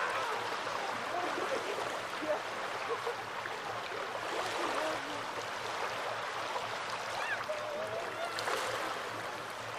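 Small Baltic Sea waves lapping steadily on the shore, with faint distant voices in the background.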